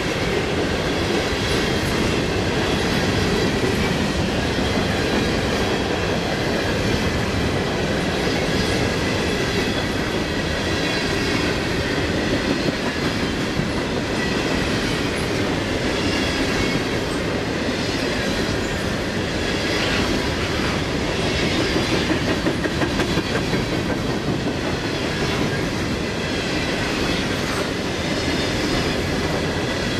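CSX freight train's flatcars, loaded with trash containers, rolling steadily past with a continuous clickety-clack of steel wheels on the rails.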